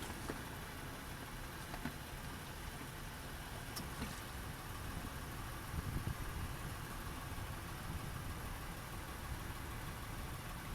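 An engine idling with a steady low rumble, with a few faint light clicks over it.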